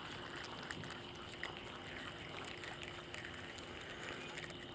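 Faint summer-night ambience: a steady high-pitched insect drone over a low steady hum, with a few faint scattered ticks.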